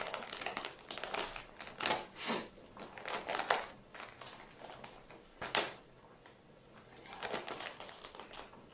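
Crinkling and crackling in irregular short bursts, several sharp ones in the first four seconds and a few more near the end.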